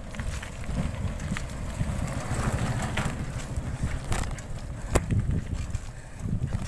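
Bicycle rolling fast over a rough, stony dirt track: a rumble of tyres on gravel with wind buffeting the microphone, and a few sharp clicks, the loudest about five seconds in.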